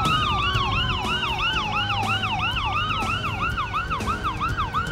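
Two emergency-vehicle sirens sound together. One is a fast yelp of about four to five rising sweeps a second. The other is a slow wail that falls in pitch over the first two and a half seconds, then starts rising again. A low rumble runs underneath.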